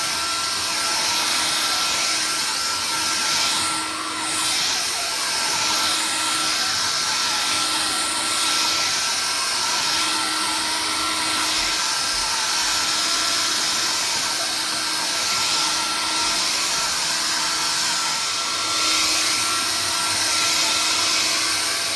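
Vax Air Cordless Lift cordless vacuum cleaner running steadily: a constant rush of air with a steady high motor whine.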